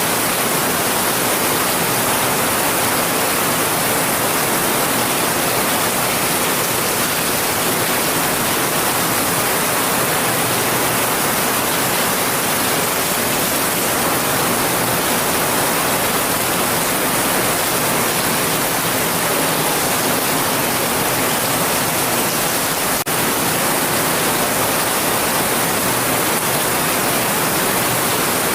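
Heavy rain pouring steadily: an even, unbroken hiss without separate drops or thunder.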